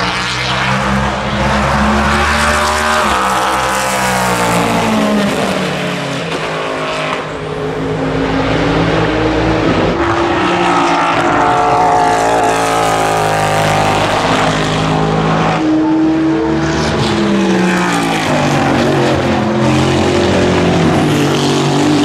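NASCAR Next Gen Chevrolet Camaro ZL1's naturally aspirated pushrod V8 running hard past the track, its pitch climbing and dropping several times as the revs rise and fall through the gears.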